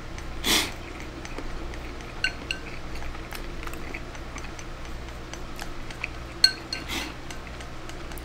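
Chopsticks clicking and scraping against a ceramic bowl while rice is eaten straight from it, with two brief louder eating noises, about half a second in and near seven seconds.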